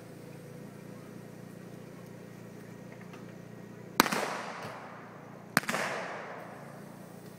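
Two shots from a mounted shooter's single-action revolver firing black-powder blanks, about a second and a half apart, each sharp crack followed by a long fading echo.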